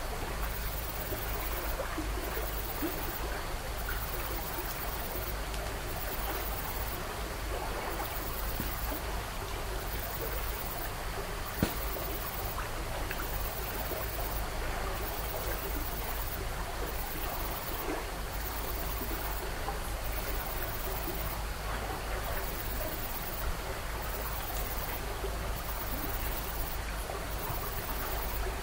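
Dead air of an overnight outdoor recording: a steady rushing hiss like a running stream over a low hum, with a high pulsing that repeats every second or so, and one sharp click about twelve seconds in.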